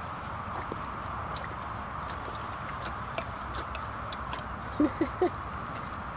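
Arabian horse drinking from a plastic cup held to its lips, with small wet slurps and clicks of lips and cup. About five seconds in come three quick short sounds in a row, the loudest in the stretch.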